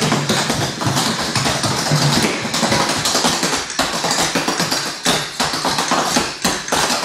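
Rapid clogging taps from two dancers' shoes striking a hard floor, a dense run of metallic clicks with the music dropped out beneath them.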